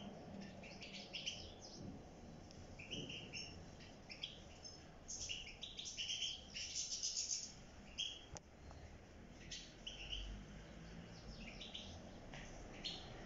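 A flock of European goldfinches calling and twittering, many short high chirps overlapping, busiest a little before the middle. A single sharp click sounds just past the middle.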